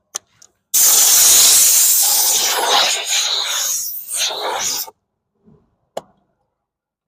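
Compressed air blasting over the scuffed wheel to clear sanding dust: a loud hiss that starts abruptly about a second in, wavers in strength, and cuts off after about four seconds, with a few short clicks around it.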